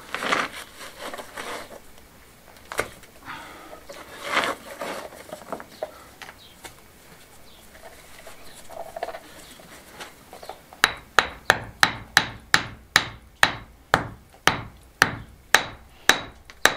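Stone being worked into lime mortar in a rubble wall by hand, with scattered scraping and rubbing; then, about eleven seconds in, a small hammer starts tapping the stone home, a little over two sharp taps a second.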